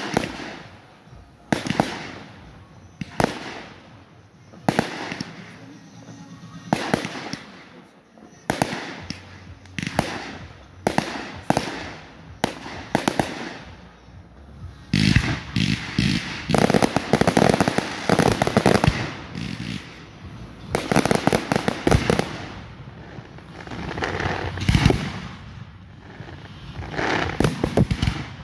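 Fireworks display: aerial shells bursting with sharp bangs, about one every second and a half, then from about halfway dense rapid volleys of bangs and crackles.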